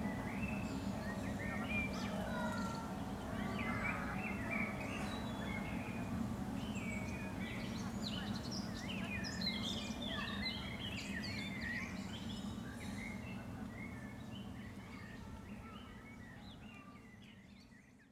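Several songbirds chirping and twittering over a steady low hum, the whole fading out over the last few seconds.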